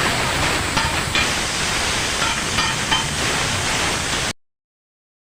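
Steady sizzling hiss of food frying on a street-stall griddle. It cuts off abruptly to silence a little after four seconds in.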